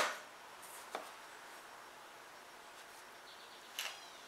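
Quiet handling of small parts: a light click about a second in and a brief clatter near the end, following the fading tail of a power-driver run right at the start.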